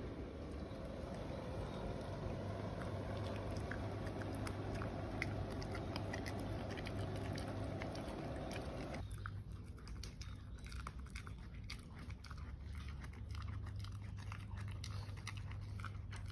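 Siberian husky chewing a dental chew stick: irregular crunching and gnawing clicks over a low steady hum.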